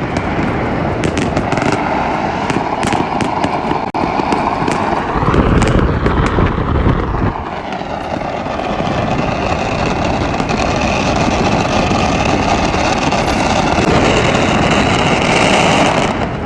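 Firecrackers and fireworks going off all around in a continuous crackle, with a flurry of sharp cracks in the first few seconds, over the steady running and road noise of a moving vehicle.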